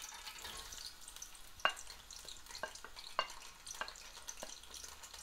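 Sliced onions frying in a pot of hot cooking oil: a faint sizzle broken by a handful of sharp pops or clicks.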